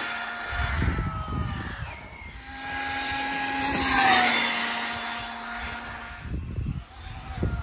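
Arrma Infraction V2 RC car's brushless motor and drivetrain whining at full throttle on its 15-tooth pinion. It speeds past, loudest about four seconds in, and its pitch drops as it goes by.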